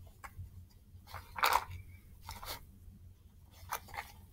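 Hands rummaging through a small plastic tub of toy objects: a few short crinkling, rustling handling noises, the loudest about a second and a half in.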